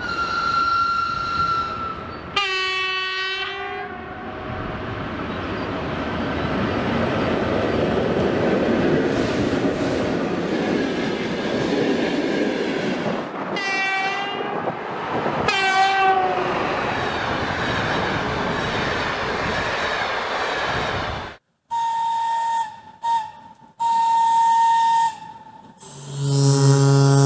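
Train horns and whistles over a moving train: a held high whistle tone, a short horn blast at about two and a half seconds, then the steady rumble of a running train with two short horn blasts in the middle. After a sudden cut come a few high whistle toots, and near the end a loud, deep horn.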